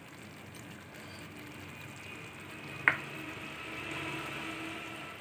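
Prawns in mustard paste sizzling quietly in a frying pan as whisked yogurt is scraped in from a bowl, with a single sharp click about three seconds in.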